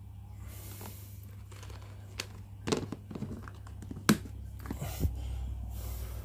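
Clear plastic tub enclosure being handled and its lid fitted: a few sharp plastic clicks and knocks, the loudest about four seconds in, with light rustling between them, over a steady low hum.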